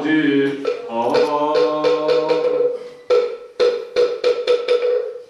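Buddhist chanting by male voices kept in time by a moktak (wooden fish) struck at a steady beat. The chant ends about halfway through, and the moktak closes with a run of strikes that come faster and faster, the usual ending of a chant.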